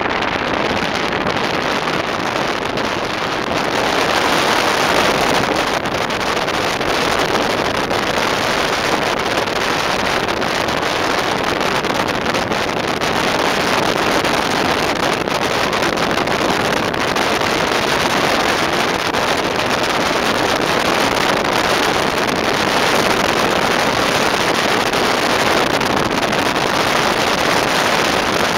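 Steady rush of airflow over a camera mounted outside a glider's fuselage as the glider is winch-launched into a steep climb.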